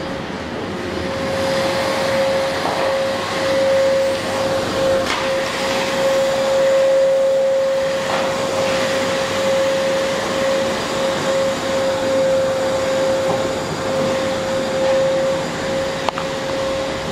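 Vacuum cleaner running steadily: one constant whine over a rush of air, with a few faint clicks.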